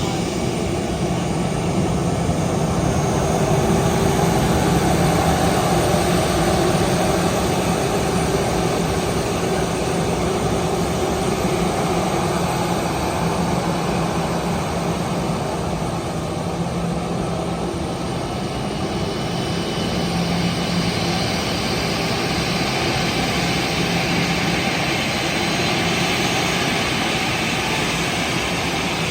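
Airliner engines running steadily: a constant, loud engine drone with a steady low hum underneath, the high hiss growing a little stronger about two-thirds of the way through.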